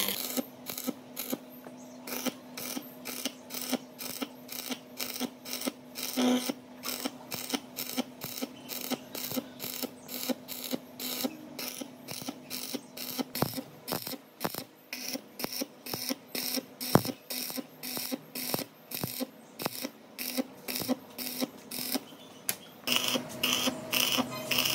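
Rhythmic mechanical strokes, about three a second, over a steady low hum.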